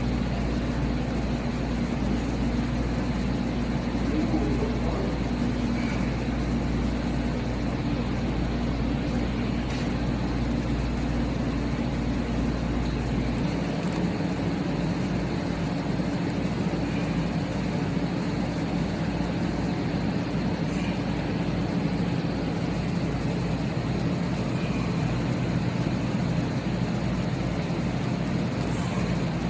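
A steady, loud mechanical hum with a rushing noise over it, like a running machine or ventilation. The low hum changes character about halfway through.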